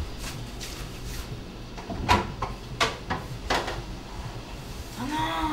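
Refrigerator door being opened and things inside handled: a few sharp knocks and clicks between about two and three and a half seconds in.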